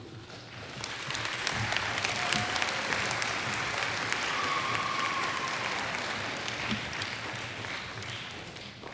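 Audience applauding: many hands clapping, swelling over about the first second, holding, then tapering off toward the end.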